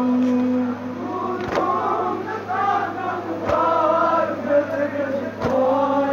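A Shia noha lament chanted by voices in unison, opening on a long held note, with a thump about every two seconds keeping time.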